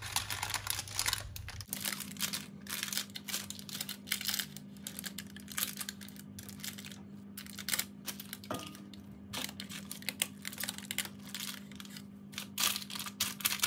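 Silicone spatula spreading and smoothing thick vegetable batter in a parchment-lined baking tray: repeated irregular soft scrapes, with the baking paper crinkling. A faint steady low hum sits underneath from about two seconds in.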